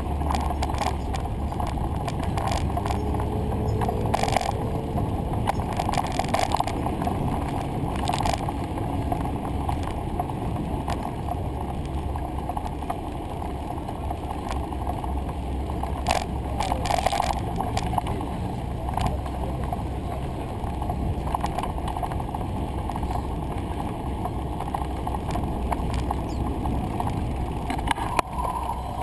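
Bicycle ride heard through a bike-mounted action camera: a steady low wind rumble on the microphone with rolling noise from the ride, broken by a few short sharp rattles.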